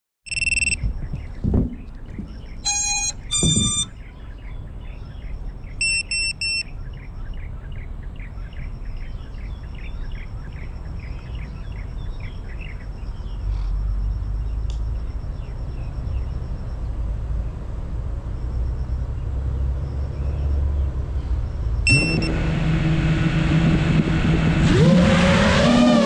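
FPV racing drone on the ground: a few short electronic beeps as it powers up, then near the end its motors spin up with a steady hum that rises and wavers in pitch as the throttle is opened for takeoff.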